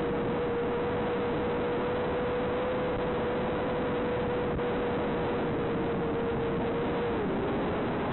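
FPV drone's motors and propellers running, heard as a steady hum under a heavy, even hiss. The hum's pitch dips about seven seconds in as the throttle eases.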